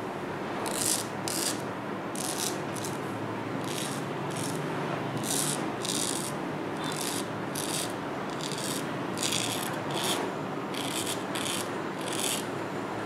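Straight razor scraping stubble through shaving foam on a man's face and neck, in short strokes about one or two a second, over a steady hiss.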